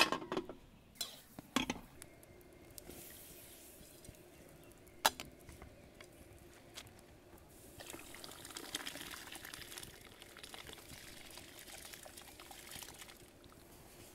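Soaked rice and its water poured from a clay bowl into a pot of boiling water: a splashing pour lasting about five seconds, starting about halfway through. Before it, a few sharp knocks.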